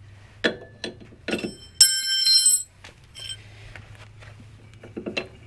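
A steel wrench clinking against the rear shock's top nut, then striking metal sharply about two seconds in, ringing for nearly a second.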